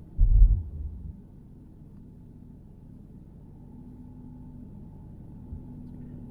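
Low steady rumble of a car driving on a snowy road, heard from inside the cabin, with one heavy low thump just after the start.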